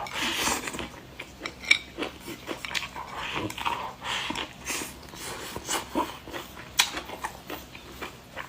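A person eating: chewing and lip smacking, with many short, sharp, irregular clicks.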